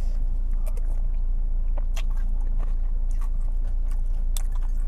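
Chewing meatball soup, with scattered light clicks of a metal spoon against a bowl, over a steady low hum.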